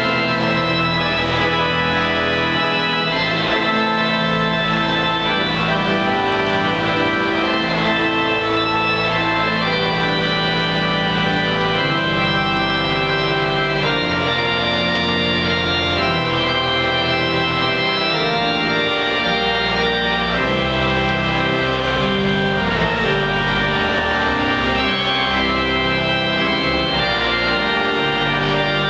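Pipe organ playing a postlude: full sustained chords that change every second or so, over low bass notes from the pedals.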